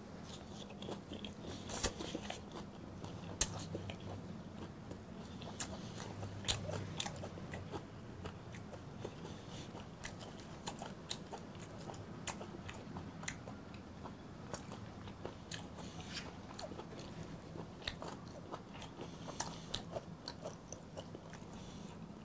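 Close-miked chewing of raw brown croaker sashimi, with many short, sharp wet clicks and smacks scattered throughout.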